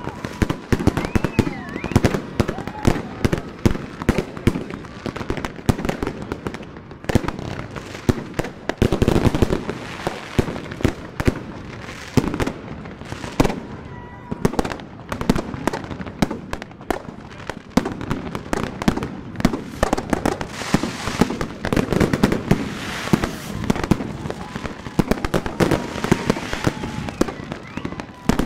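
Fireworks going off all around: a dense, unbroken stream of overlapping bangs, pops and crackles, heaviest about nine seconds in and again from about twenty seconds in.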